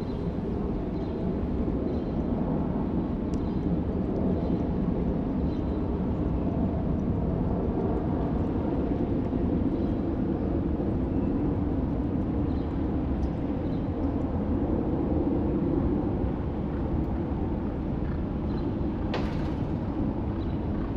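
Steady low outdoor rumble of background noise, with a short burst of noise near the end.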